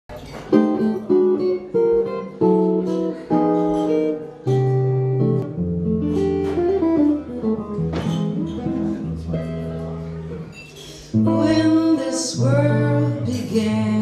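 Solo archtop jazz guitar playing a chord-melody introduction. It opens with plucked chords struck about every half to one second, then moves to longer held notes over a stepping bass line. About eleven seconds in, a woman's voice comes in singing.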